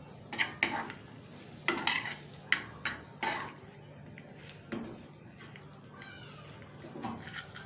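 Metal spoon scraping and clinking against a metal frying pan as chicken pieces are stirred and turned in thick sauce. The scrapes come in quick irregular strokes, most of them in the first five seconds, and thin out toward the end.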